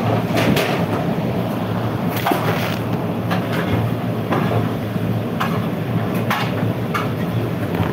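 Steady roar of a commercial kitchen's lit gas burners and overhead exhaust hood with a constant low hum, broken by scattered sharp knocks and clicks.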